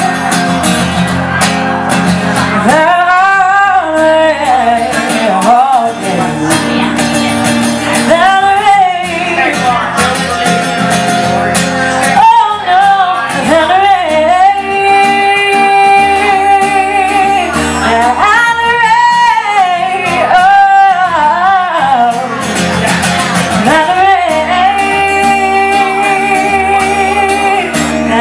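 Live female vocals over strummed acoustic guitar: the singer holds long notes with vibrato and slides through wordless vocal runs.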